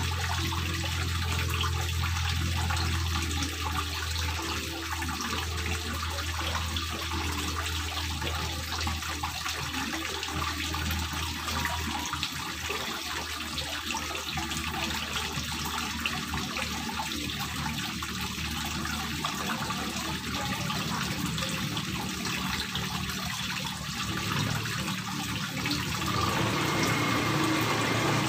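Water running down the face of a stone water-wall fountain and splashing steadily into its small pond basin. A low hum sits underneath and fades out about halfway through.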